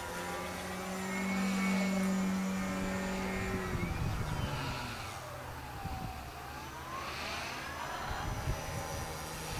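Electric motor and propeller of a 65-inch U Can Do 3D RC airplane on a 6S battery, whining steadily as it flies overhead. A few seconds in the pitch drops, dips low about halfway through, and climbs back near the end.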